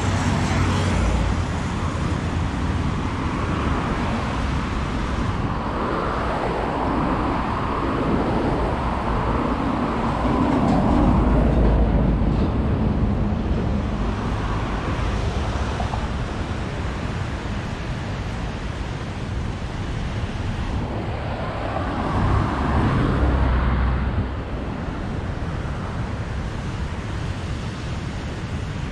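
Road traffic on a busy avenue: cars passing in a steady wash of tyre and engine noise, with two louder passing vehicles, one about a third of the way in and one past the middle.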